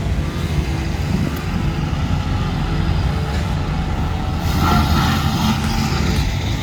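Heavy diesel machinery running steadily with a deep, rumbling engine note, and a harsher mid-range sound joining it briefly about five seconds in.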